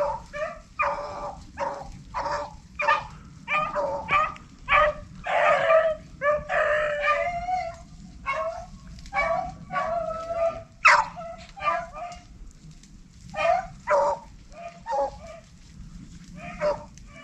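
A pack of rabbit hounds baying on a running rabbit: short, repeated barks and cries, several dogs at once, coming thick for the first ten seconds or so and thinning out near the end.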